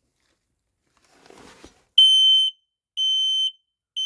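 FireAngel smoke alarm sounding its test alarm: loud, high-pitched beeps about half a second long, one a second, starting about two seconds in.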